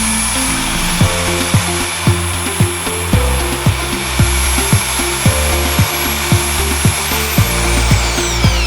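Electric impact drill motor running with a steady high whine, winding down near the end as its pitch falls away. Under it plays background dance music with a beat of about two a second.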